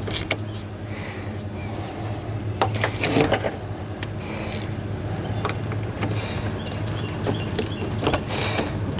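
Scattered clicks and metal taps of a wrench loosening a car battery's terminal clamp, over a steady low hum.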